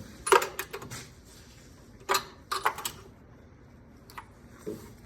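A handful of short, sharp clicks and knocks at irregular spacing, with quiet between them, from hands-on work on the engine of a snowmobile just pulled out of a pond.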